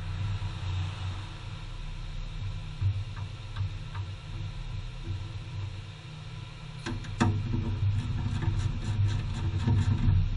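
A car engine running with a steady low rumble, joined by a cluster of clicks and knocks and a louder rumble from about seven seconds in.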